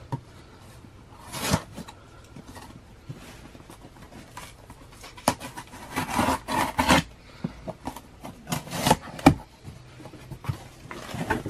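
A taped cardboard shipping box being opened by hand: packing tape slit along the seam and the flaps scraped and pulled apart, heard as several short rasping, rubbing bursts with a few sharp clicks.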